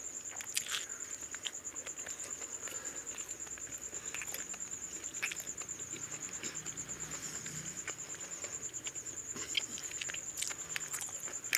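Eating by hand: scattered soft clicks and smacks of fingers working rice and mutton curry on a plastic plate and of chewing, over a steady high-pitched trill.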